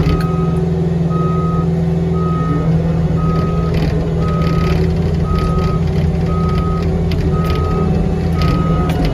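Cat 259D3 skid steer's diesel engine running steadily while its backup alarm beeps about once a second as the machine reverses, with occasional clanks and rattles from the machine.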